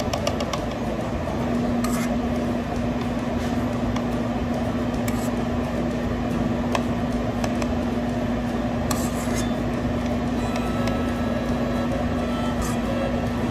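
Steady hum of a running appliance, with a steady tone that comes in about a second and a half in. A few faint taps of a plastic cup being handled.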